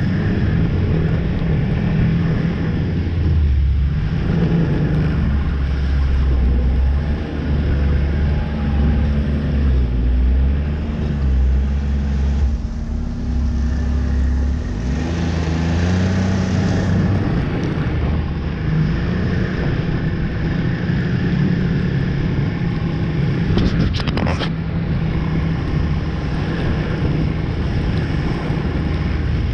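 Snowmobile engine running under way, heard from the rider's seat, its pitch rising and falling as the throttle changes, with a brief knock late on.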